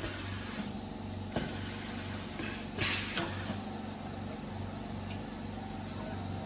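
Rivetless riveting machine working through a riveting stroke: a steady machine hum, a sharp click about a second and a half in, then a short loud hiss of exhausting compressed air about three seconds in.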